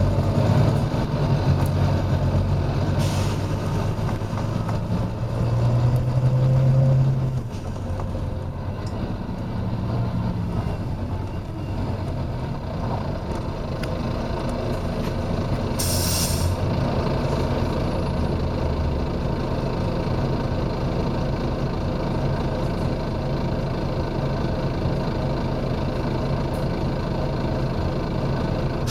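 Volvo B9TL bus's diesel engine running, louder for the first several seconds and then settling, with short hisses of released compressed air from its air system: a brief one about three seconds in and a longer, louder one about halfway through.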